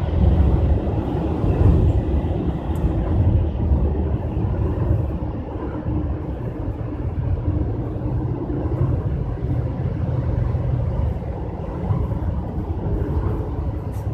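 Steady low rumble of background noise with a faint hum.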